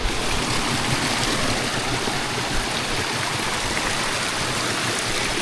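Waterfall: steady, dense rushing of falling water.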